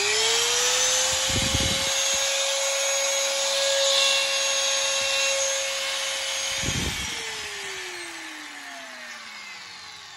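Makita electric sheet-metal shear running with no load: its motor settles into a steady high whine, runs for about seven seconds, then is switched off and winds down with a falling whine. A test run of the motor and blade drive.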